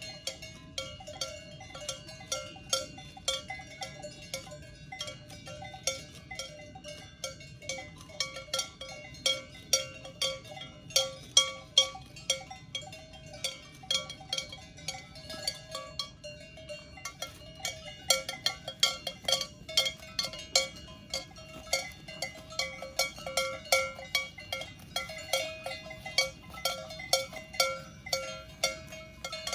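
Cowbells on grazing Swiss cows clanking and ringing irregularly as the cows move, several bells at different pitches overlapping. The clanks come a few times a second and grow busier and louder about a third of the way in.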